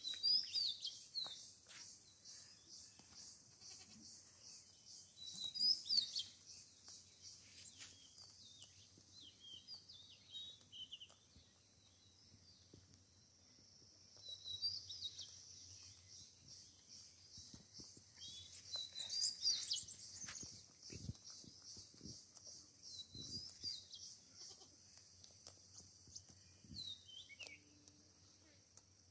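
Goat kids grazing: faint tearing and chewing of grass, over a steady high hiss with short high chirps coming and going.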